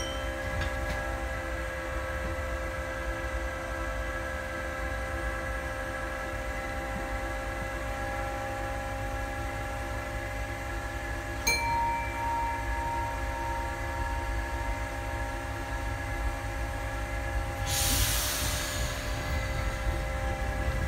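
Inside an MF67 Paris Métro car: the train's low rumble with several steady whining tones. A click about eleven seconds in is followed by a brief tone, and a short burst of air hiss comes near the end.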